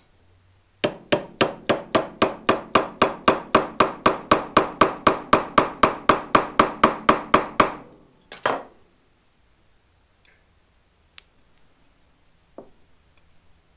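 Claw hammer tapping a screw extractor (easy-out) into a stuck, stripped pilot jet in a Suzuki GS550's Mikuni BS32 carburetor, so the extractor bites into the jet. It is a fast, even run of sharp metal taps, about four a second for some seven seconds, then two more taps and a few faint clicks.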